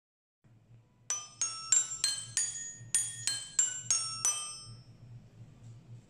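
Short chime jingle of about ten bright struck bell-like notes in two quick runs of five, each note ringing and fading, the last ringing out about five seconds in. A faint low hum runs underneath.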